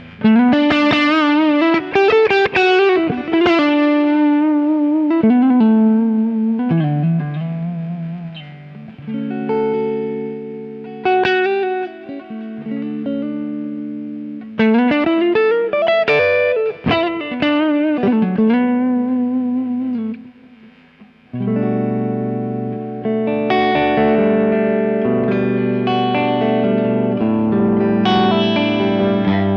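Soloking MT-1 Custom Telecaster-style electric guitar played through an amp: melodic single-note lines with vibrato and string bends, then sustained ringing chords after a brief pause about two-thirds of the way in.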